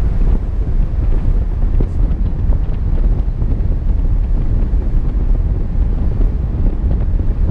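Wind buffeting the microphone of a camera on a moving vehicle, over the vehicle's steady low rumble of road and engine noise.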